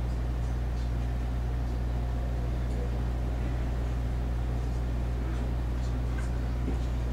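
Steady low hum of an HB-E300 series hybrid railcar's on-board machinery heard inside the cab while the train stands still, with a faint high tone over it and a few light ticks.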